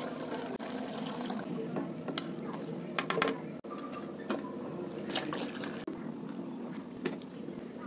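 Liquid sloshing and splashing in a steel cooking pot of sambhar, with a few sharp metal clinks of vessel and ladle; boiled drumstick pieces are added to the pot. A brief break about halfway through.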